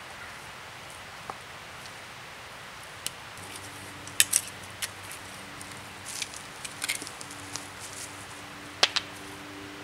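A small hand tool scraping and clicking against grit and stones while digging in loose soil, in short irregular strokes, the sharpest a little after four seconds and near the end. A faint steady low drone sets in about three and a half seconds in.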